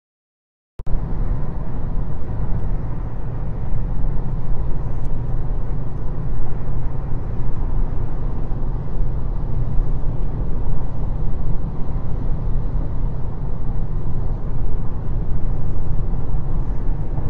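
Silence for under a second, then a steady low rumbling noise with no words.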